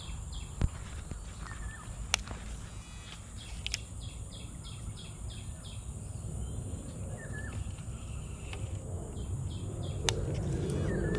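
Outdoor insect and bird ambience: a steady high insect drone, with runs of rapid pulsed calls, about five a second, coming in short bursts a few times, and a couple of short bird chirps. A few sharp clicks stand out, and a rustling noise grows louder near the end.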